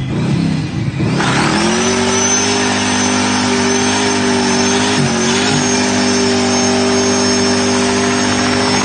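Sports car engine and exhaust revved up about a second in and held at steady high revs for several seconds, with a brief dip about halfway, before dropping off near the end.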